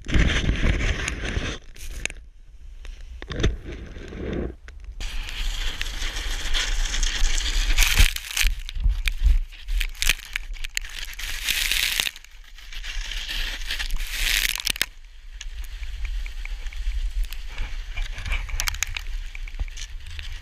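A snowboard and rider sliding and tumbling through deep powder snow, recorded close up on a pole-held action camera: a rough noise of snow scraping and spraying. It dips for a few seconds, then runs loudest through the middle before easing off.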